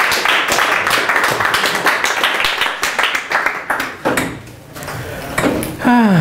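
A small audience applauding, the clapping dying away about four seconds in. Near the end a voice gives one short call that falls steeply in pitch.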